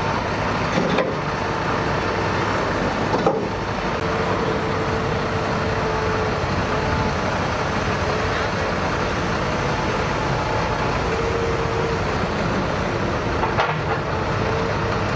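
Diesel engine of a Caterpillar M314F wheeled excavator running steadily under load, with a faint hydraulic whine that comes and goes as the boom and grab swing. A few sharp knocks are heard about a second in, around three seconds and near the end.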